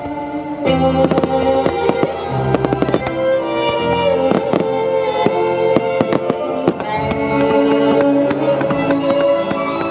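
Classical music played at the venue, with a starmine fireworks barrage going off over it: many rapid bangs and crackles in quick succession, starting about a second in.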